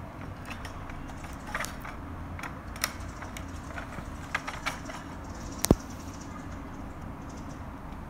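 Small plastic clicks and taps from a G.I. Joe Steel Crusher toy vehicle's turret as a red projectile missile is fitted and the turret is turned. One sharp, much louder snap comes a little past two-thirds of the way through.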